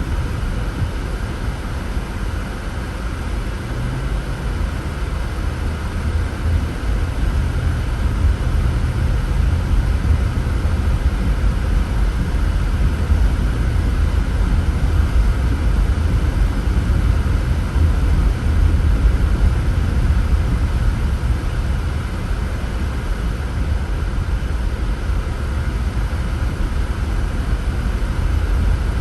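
Car driving: steady low road and engine rumble with tyre noise, growing a little louder a few seconds in.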